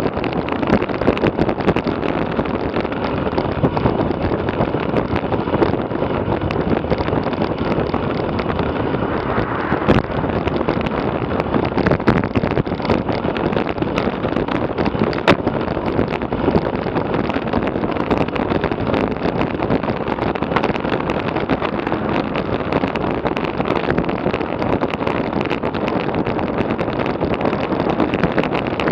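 Steady wind rushing over the microphone of a bike-mounted action camera at about 40 km/h, mixed with the hiss of road tyres on asphalt. A few sharp clicks stand out, around a third and halfway through.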